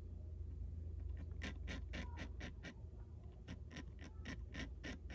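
Small blade scratching overspray off spray-painted plastic: quick short scrapes, about four a second, starting about one and a half seconds in, with a brief pause near the middle.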